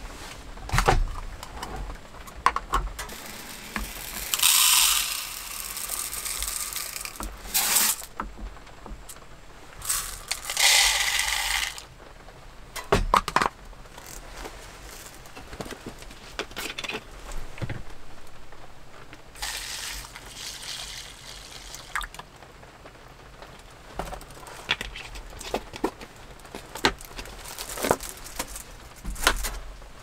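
Hands preparing food at a small wooden table: a few short pours from a plastic container and a plastic water bottle into a cloth-lined bowl, one to two seconds each, with clicks, light knocks and plastic handling sounds between them.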